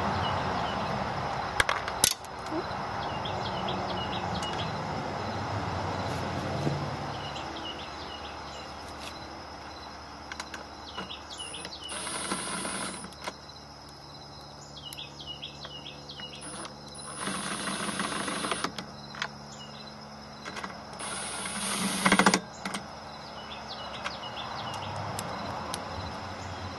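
Bolts being driven back into a Honda lawnmower's recoil starter housing: scattered metallic clicks and clinks, and several short bursts of rapid ratchet-like clicking.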